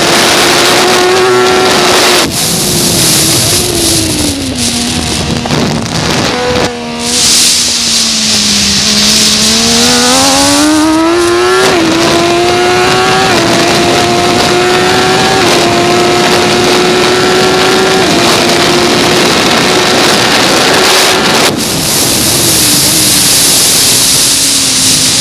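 MV Agusta 675 three-cylinder race engine at racing revs. Its pitch falls through the first few seconds into a slow section, then climbs hard about ten seconds in and steps up through several gear changes. Strong wind rush comes and goes at speed.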